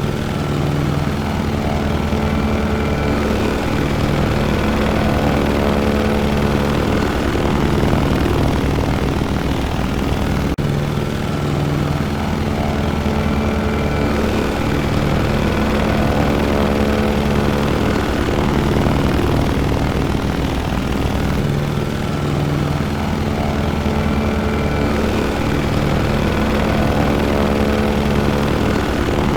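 Airport ambience dominated by a steady aircraft engine drone: a continuous hum with several held low tones over a broad rush, swelling and easing gently, with a brief dip about ten seconds in.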